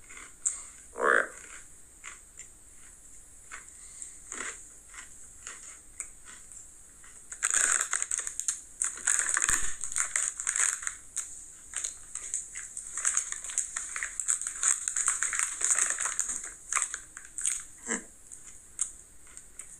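Plastic snack bag crinkling and rustling, starting about seven seconds in and going on for several seconds, with a few short soft sounds before it.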